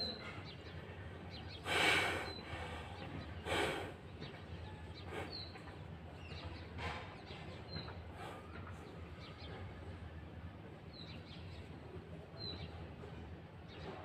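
Small birds chirping in the background: short, high chirps every second or two. Two louder short rushes of noise come about two and three and a half seconds in.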